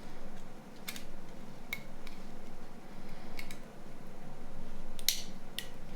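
A handful of sharp clicks and taps from small plastic mobile-phone parts being handled and fitted together, the loudest near the end.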